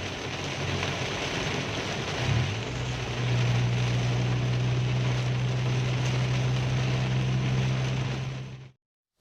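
Inside a car driving on a motorway in heavy rain: a steady rush of tyre, rain and wind noise over a low engine drone that steps up in pitch and strengthens about two and a half seconds in. The sound fades out near the end.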